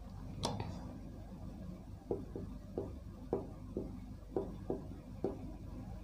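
Marker writing on a board: a string of short taps and light scrapes as the letters of one word are stroked out, with one sharper click about half a second in.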